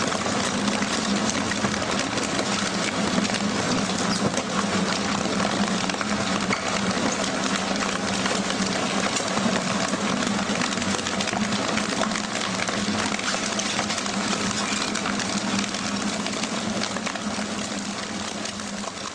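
Kwell GL600 double-shaft shredder tearing up cardboard cartons: a steady hum from the drive under a dense crackle of shearing, ripping cardboard. It eases off near the end as the last cartons go through the blades.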